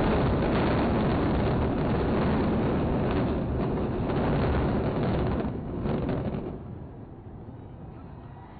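Deep, continuous rumble of two concrete high-rise towers collapsing in a controlled explosive demolition, the mass of falling concrete coming down into a dust cloud. The rumble eases to a quieter one about six and a half seconds in.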